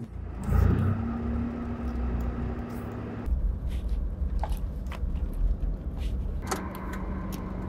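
Car cabin noise: a steady low rumble of the engine and road heard from inside the car, with a faint steady hum over it.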